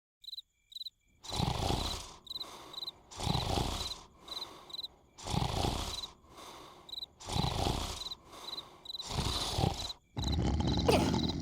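Cartoon larva snoring, one loud snore roughly every two seconds in a steady rhythm, over chirping crickets.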